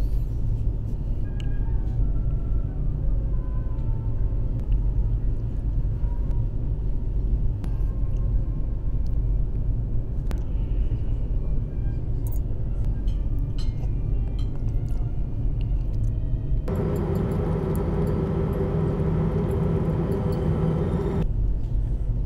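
Steady low drone of the ferry's engines carried through the ship, with a few light clinks of cutlery on a china plate. For about four seconds near the end the hum changes to a more pitched tone before returning.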